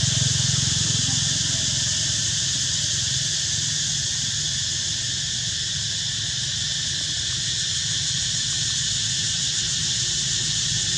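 Steady outdoor background: a constant high, hiss-like drone with a low hum beneath it, and no distinct calls or knocks.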